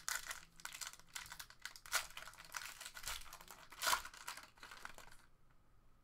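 Foil wrapper of a Panini Select basketball card pack crinkling and tearing open in the hands. It is a run of irregular crackles with louder rips about two and four seconds in, and it dies down shortly before the end.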